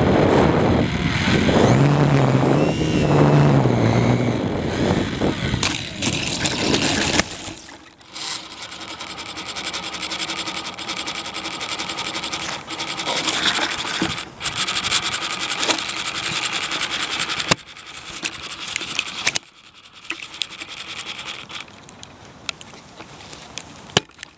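RC plane's motor and propeller heard from the onboard camera, loud at first with air rushing past. About seven seconds in it drops to a quieter steady hum, and it drops again near the end.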